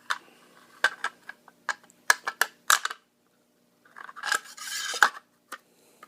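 Metal parts of an HK MP5 .22LR clicking and clinking against each other as a part is fitted and lined up in the receiver, with a scraping slide of metal on metal about four seconds in.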